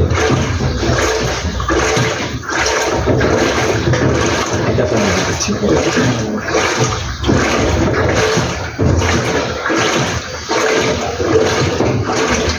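LG inverter top-load washing machine agitating a load of clothes in water: loud sloshing and churning that surges and drops every half second to a second as the agitator reverses.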